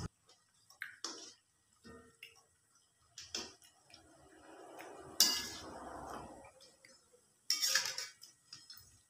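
Perforated metal skimmer clinking and scraping against a metal wok while prawn fritters are turned in frying oil. There are several separate knocks, the loudest about five seconds in and another group near eight seconds, with scraping in between.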